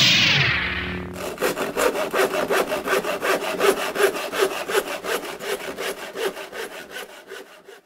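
A falling swoosh in the first second. Then fast, even scraping strokes, about five a second, like a saw working through wood, which fade away gradually and stop near the end.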